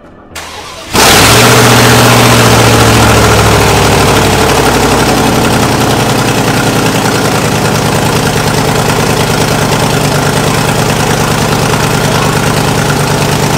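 Dodge Ram 1500 pickup engine cranking briefly and catching about a second in. It settles from a fast idle into a steady idle.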